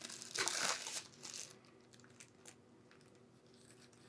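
Thin white protective wrap rustling and crinkling as an LED bulb is slid out of it by hand, loudest in the first second and a half, then only a few faint rustles.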